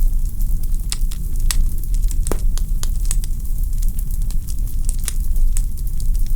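Wood fire in a fireplace crackling: irregular sharp pops and snaps over a steady low rumble, with one louder pop a little past two seconds in.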